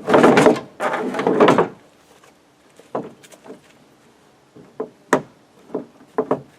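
Fiberglass bumper cover being worked into place on the car: two loud bursts of rubbing and knocking in the first two seconds, then scattered light knocks and clicks.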